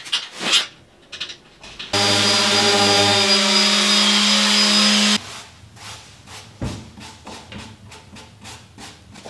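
A couple of knocks, then an electric orbital sander running on a wooden cabinet for about three seconds, a steady whine of fixed pitch that cuts off abruptly. After it come quick, repeated rubbing strokes of a brush working wood stain into the cabinet's doors.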